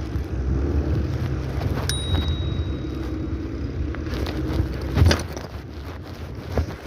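Skateboard wheels rolling over pavement: a steady low rumble, with a sharp knock of the board about five seconds in.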